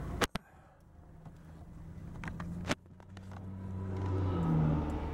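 Heavy diesel dump truck driving past on the road, its engine growing louder to a peak about four and a half seconds in and then easing off. Before it, quieter traffic sound, with sharp clicks just after the start and again a little under three seconds in.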